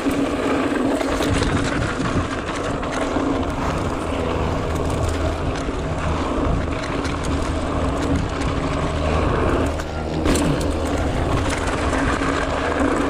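Mountain bike rolling fast down a dirt trail: a steady rush of wind and tyre noise, with scattered clicks and rattles from the bike over the bumps.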